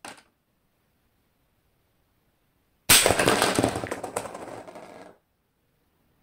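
Snow Wolf M24 airsoft rifle firing a 0.90 g steel BB into a plastic bottle cap at point-blank range. There is a sudden sharp shot and impact about three seconds in, followed by about two seconds of rattling clatter that dies away as the cap is knocked off the stand. A short plastic click at the very start comes from the cap being set down.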